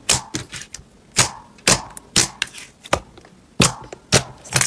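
Glossy pearl-clear slime being pressed and kneaded by hands, giving a quick, irregular series of sharp wet pops and clicks as trapped air is squeezed out.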